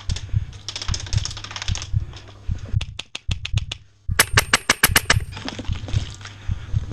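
Airsoft rifles firing rapid strings of shots. A quick burst comes about a second in, then about seven sharp separate shots around three seconds. The loudest is a burst of about ten shots with a metallic ring, near the middle. Low dull thumps run underneath.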